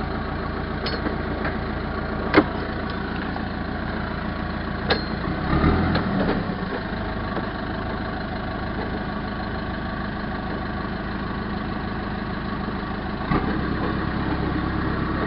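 Backhoe's diesel engine idling steadily, with two sharp clicks of dash switches being pressed in the first five seconds. The engine note shifts briefly about six seconds in and again near the end.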